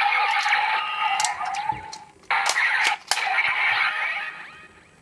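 Electronic sound effects from a DX Kamen Rider Drive toy playing through its small built-in speaker, reacting to the Midnight Shadow Shift Car: two long stretches of synthesized sound with several sharp clicks between them, fading away near the end.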